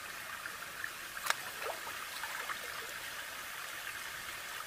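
Creek water running steadily, with a short splash about a second in as a swimmer ducks under the surface, followed by a few small drips and plops.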